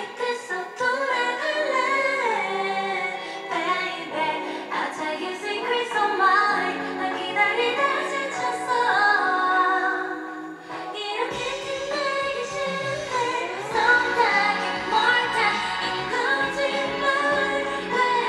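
Female vocalist singing a pop song live into a handheld microphone over a backing track, amplified through a stage sound system. A low bass line comes in about eleven seconds in.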